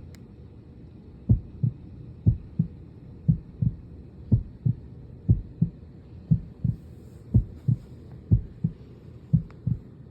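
Heartbeat sound effect: a steady, slow lub-dub, nine deep double thumps about a second apart, starting about a second in over a low steady hum.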